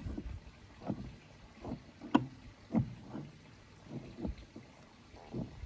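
Light, irregular knocks of a hand tool against a stone block, roughly one every half second to a second.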